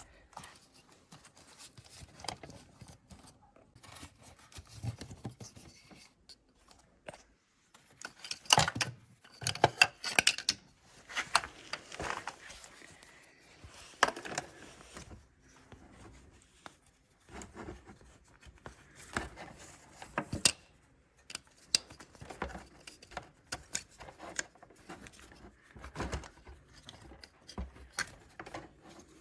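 Hands working the stator's wiring harness and plug through a motorcycle frame: irregular rustling, scraping and clicking of wire and plastic, with a few louder clacks near the middle.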